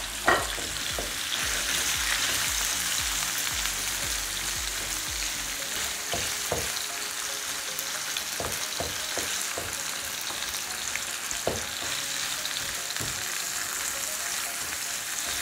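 Minced meat sizzling in hot oil in a nonstick pan, a steady frying hiss, with a few soft knocks and scrapes as a spatula breaks up the meat.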